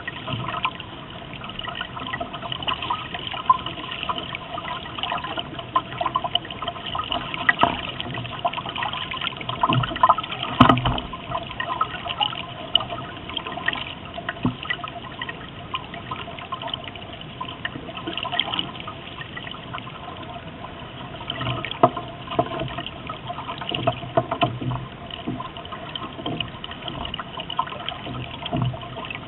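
Water rushing and splashing along a small sailboat's hull as it sails, with irregular louder slaps.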